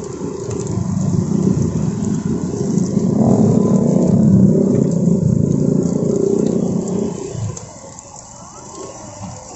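A road vehicle's engine passing close by: a low rumble that builds over the first few seconds, is loudest about midway, and fades away near the end.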